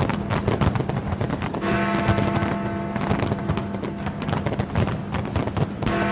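Fireworks display: a rapid, dense barrage of bangs and crackling over music holding long sustained notes.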